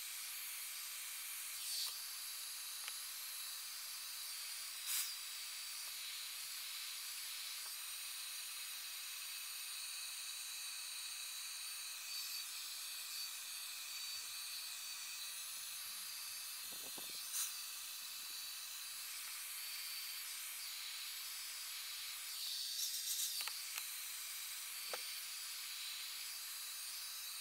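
Hair dryer running steadily, a constant airy hiss with a faint low hum, drying freshly airbrushed paint on 3D printed plastic parts, with a few small clicks.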